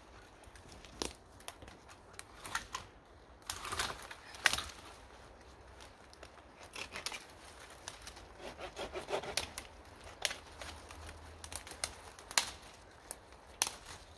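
Dry dead branches and twigs cracking, snapping and rustling as deadfall is handled and pulled apart, in irregular sharp snaps with the loudest about four seconds in.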